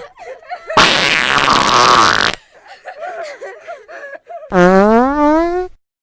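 Fart sound effects: a long, noisy fart about a second in, then a shorter pitched fart near the end whose pitch rises.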